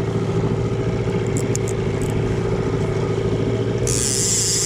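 Boat's outboard motor running steadily at trolling speed. A high buzzing hiss joins in near the end.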